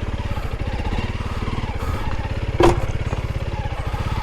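Honda CRF300L Rally's single-cylinder engine running at low revs with an even, rapid pulse, with a short sharp sound about two and a half seconds in.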